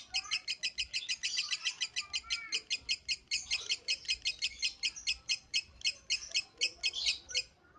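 Lovebird calling in a long, unbroken run of rapid, evenly spaced high chirps, about seven a second, that stops shortly before the end.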